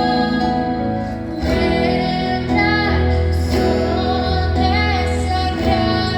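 A female voice singing a melody with vibrato over band accompaniment, with sustained bass notes underneath.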